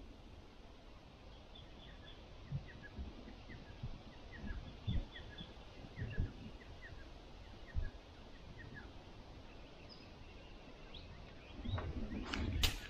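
Small birds chirping in quick short calls against a faint outdoor background, with a few dull low knocks. Near the end comes a louder clatter of sharp clicks.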